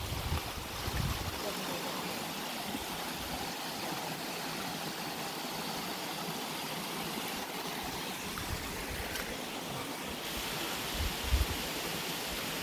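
Steady rushing of a mountain stream flowing over rocks. A few low thumps sound about eleven seconds in.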